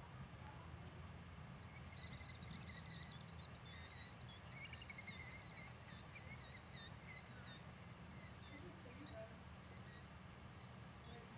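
Faint twittering of a small bird: a run of quick, warbling chirps starting about two seconds in and going on to near the end, over a low steady rumble.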